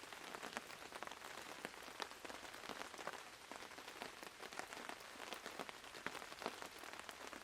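Steady rain, with many separate drops and drips landing close by.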